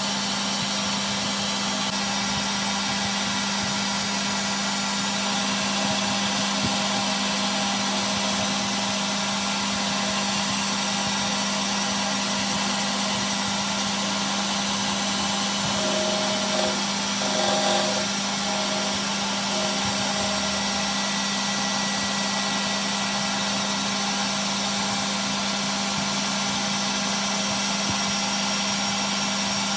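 Lathe running steadily, a constant machine hum with a noisy whir over it, with a brief louder patch about 17 seconds in.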